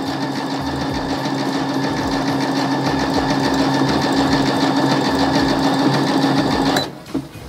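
Baby Lock Verve sewing machine stitching a decorative stitch, set wider and longer than default, through a quilt sandwich at a steady speed. It stops suddenly near the end.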